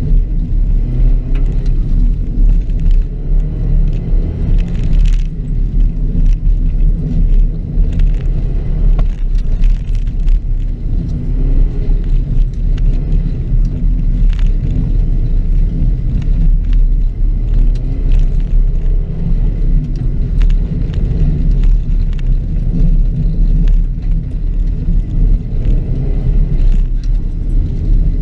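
2006 Subaru WRX's turbocharged flat-four engine under hard driving on a dirt rallycross course, its pitch repeatedly rising and falling, over a heavy low rumble with frequent sharp ticks and knocks.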